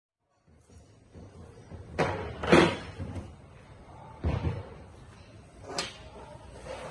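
Four sharp knocks, irregularly spaced, the second the loudest, over a low steady background noise.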